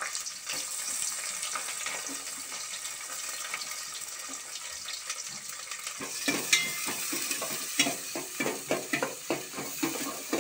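Sliced onions sizzling steadily in hot oil in a stainless steel pot. About six seconds in, a spoon starts stirring them, adding quick scrapes and clinks against the steel pot over the sizzle.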